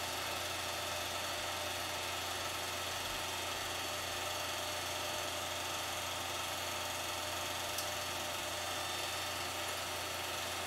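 Home-movie film projector running, a steady mechanical whir and hum with a faint tick about eight seconds in.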